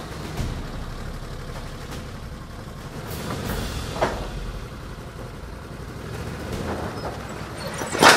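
Side-by-side UTV engine running at low speed as the vehicle backs down off a flatbed trailer. There is a metallic knock about four seconds in and a louder clank just before the end as the wheels come down off the trailer.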